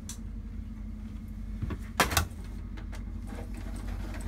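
A couple of sharp clicks and knocks about two seconds in, from a screwdriver and hands working on the parts of an opened gas combi boiler, over a steady low hum.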